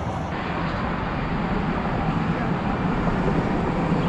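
Steady rumble of road traffic on the bridge, an even outdoor noise with a constant low hum and no distinct events.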